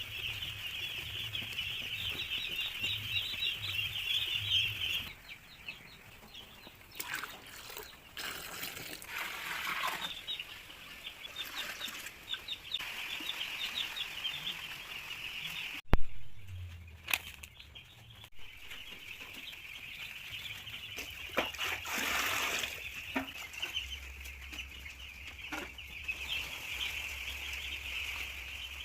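A flock of young poultry chicks peeping together in a dense, continuous chorus of high cheeps. The chorus thins out twice, with brief rustling noises in places and one sharp click about sixteen seconds in.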